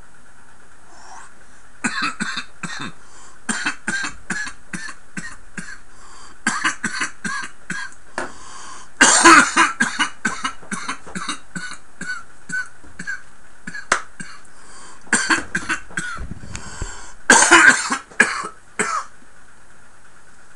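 A man coughing hard in repeated fits after inhaling a large dab hit of concentrate vapour, the fits loudest about nine seconds in and again near the end.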